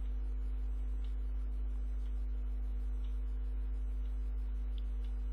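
Steady electrical hum, a low mains-type drone with a couple of constant tones above it, picked up by the recording microphone. A few faint ticks sound over it.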